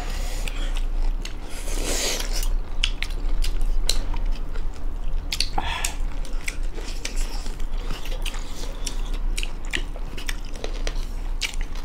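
Close-miked chewing of local rooster meat and rice eaten by hand: wet mouth smacking with many small, sharp clicks, and a couple of louder noisy moments about two and six seconds in.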